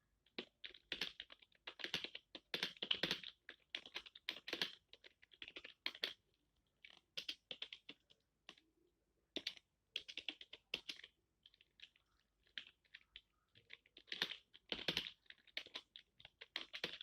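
Computer keyboard being typed on in uneven bursts of keystrokes with short pauses. Hindi text is being typed, with some characters entered as Alt-plus-number codes.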